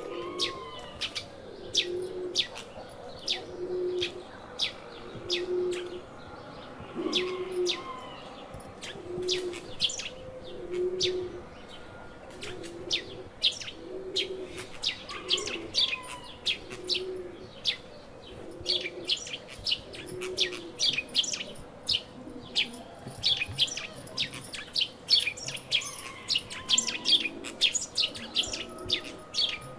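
Small birds chirping busily throughout. A low cooing note, like a dove's, repeats about every second and a half for the first two-thirds.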